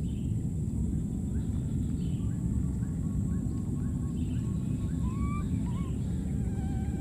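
Outdoor ambience: a steady low rumble with faint, short chirping calls about twice a second, then a few thin rising-and-falling whistled calls near the end.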